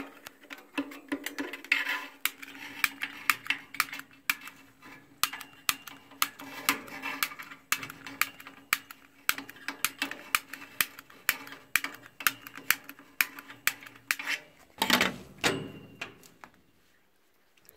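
Long-reach barbecue lighter clicking over and over, about two sharp clicks a second, its empty lighter sparking into the gas flow to light a Weber Genesis propane gas grill burner. The clicking stops near the end.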